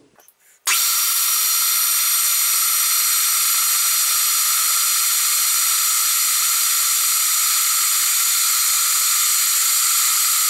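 Milling machine running a small ball end mill through a shallow cut in cast iron with coolant flowing. The sound is a loud, steady hiss that starts abruptly about a second in.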